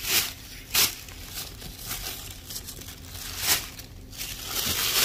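Tissue paper rustling and crinkling as it is handled and pulled aside inside a cardboard boot box, in a series of short bursts with a longer rustle near the end.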